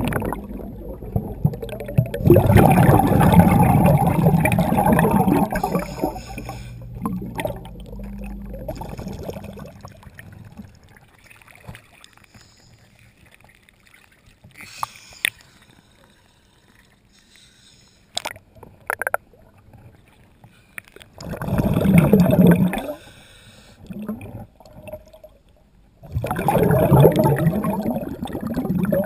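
Water gurgling and bubbling around a camera held underwater, coming in loud bursts with quieter spells and a few sharp clicks between them.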